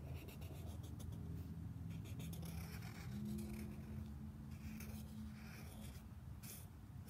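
Black Sharpie permanent marker scratching across paper in a run of short strokes, as a drawing is inked. A low steady hum sounds for a few seconds in the middle.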